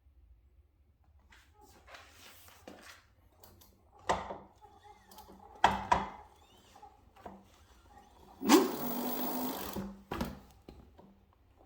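A mechanical grinding noise lasting about a second and a half, the loudest part, preceded and followed by a few sharp knocks.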